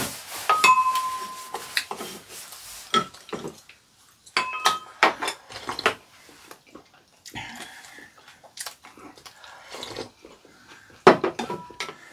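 Metal spoons and chopsticks clinking against ceramic bowls, several clinks ringing briefly, in clusters about half a second in, around four and a half seconds in and near the end, with soft eating and soup-sipping sounds between them.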